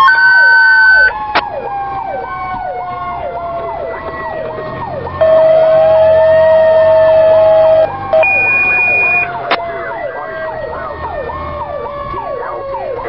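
Fire apparatus running with its sirens on: an electronic siren yelps rapidly throughout while a second siren tone slides slowly down, rising once near the middle. Loud, long horn blasts sound at the start and again from about 5 to 9 seconds in.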